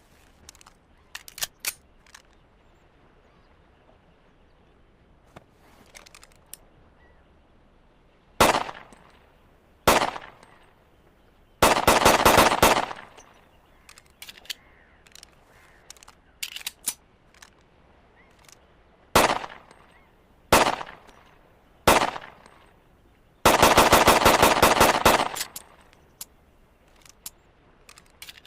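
Browning Hi-Power pistol firing: two single shots, a rapid string of shots, three more single shots spaced about a second and a half apart, then a longer rapid string near the end. Faint small clicks come between the strings.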